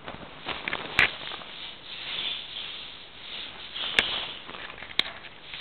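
Soft rustling of satin bedding as a baby fuzzy lop rabbit is handled, with three sharp clicks about a second in, near four seconds and near five seconds.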